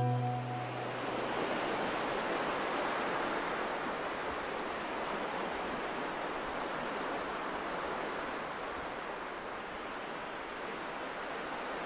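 A steady rushing noise with no music, fading slightly towards the end.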